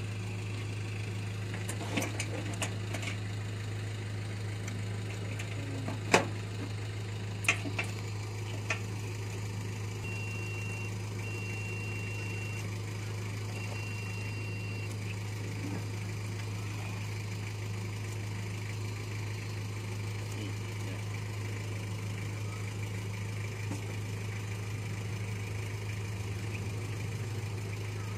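Steady low machine hum with a fainter overtone above it. Sharp clicks and taps come between about two and nine seconds in, the loudest near six seconds. Three short high beeps follow between about ten and fifteen seconds in.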